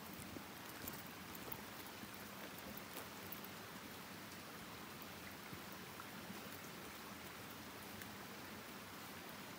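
A small forest stream trickling and splashing steadily, with faint scattered ticks on top.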